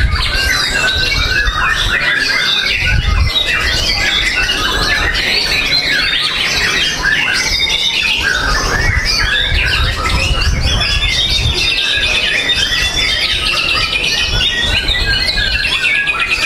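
White-rumped shama (murai batu) singing in full song: a rapid, unbroken stream of varied whistled and chattering notes. Under it runs a low rumble.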